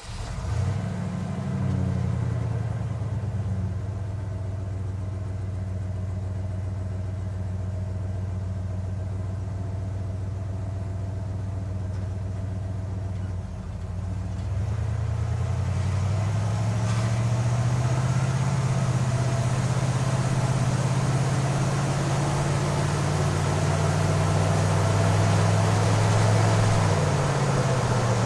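Cargo van engine just after starting, settling into a steady idle. About halfway through it rises to a higher steady speed, holds it, and drops back down near the end.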